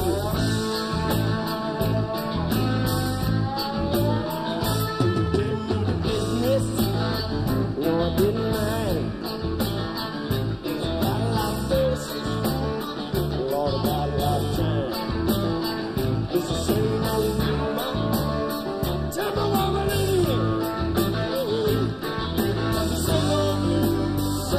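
Rock band playing a blues-rock song live: a man sings lead over electric guitar, bass and drums, with cymbals keeping a steady beat.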